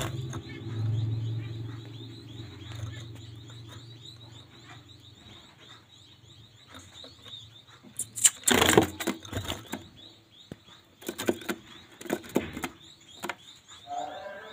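Zebra finches chirping with short, high calls. Several loud rustles come about halfway through and again a few seconds later.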